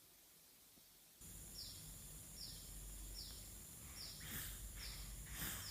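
A two-month-old baby snoring in sleep: short, high squeaky sounds repeating a little more than once a second, with two louder breathy snorts near the end.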